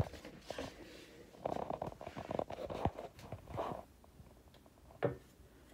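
Handling noise of a phone camera being moved and set in place: scattered rustles and light taps, with a sharp knock right at the end.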